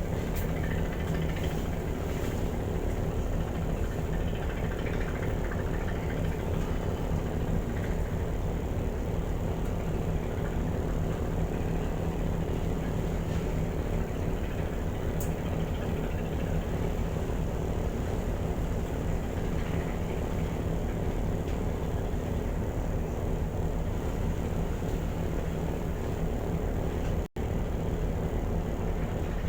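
Steady low drone of a car ferry's diesel engines running at an even pitch, with a constant wash of noise over it. The sound cuts out for a split second near the end.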